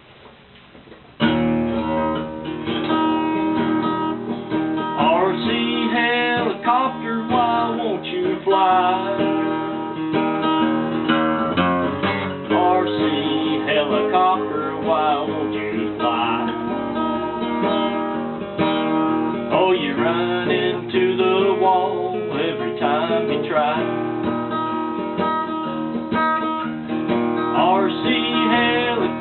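Acoustic guitar strummed in a blues, coming in suddenly about a second in, with a melody line above it that bends and wavers in pitch.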